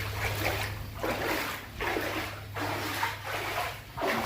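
Floodwater sloshing and splashing in repeated surges, about one every three quarters of a second, as someone wades through the water, over a steady low hum.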